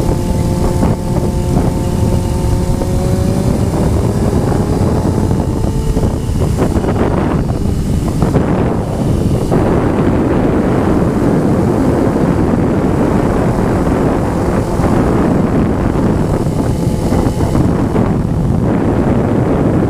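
Loud wind rush buffeting the microphone on a moving Honda CBR motorcycle. For the first few seconds the engine's steady note shows through and rises a little in pitch, then the wind drowns it.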